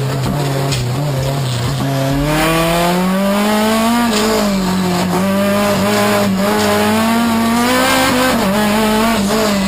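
A small race car's engine heard from inside the cabin, revving hard through a slalom. The engine note climbs from about two seconds in, then rises and falls as the driver accelerates and lifts between gates.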